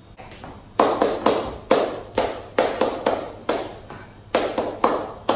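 Flamenco shoes striking a hard floor in flamenco tango footwork: a dozen or so sharp heel and toe strikes in a quick, uneven rhythm that starts about a second in, each ringing briefly in the room.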